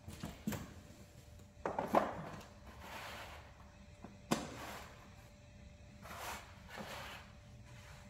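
Metal engine parts and tools being handled during timing chain work: scattered knocks and clinks. The loudest are a cluster of knocks about two seconds in and a single sharp click a little past four seconds.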